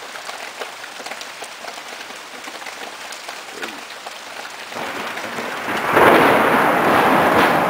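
Steady rain pattering in a thunderstorm. About five seconds in, thunder begins to rumble, then breaks into a loud crash about a second later that rumbles on.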